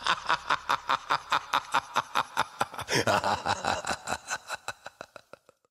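Sinister cackling laugh, a rapid run of 'ha' pulses about five a second, rising again about three seconds in and then fading out.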